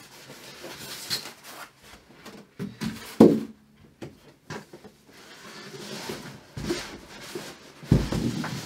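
TV box and packing being handled: scattered knocks and thumps, the loudest about three seconds in and another near the end, with rustling in between.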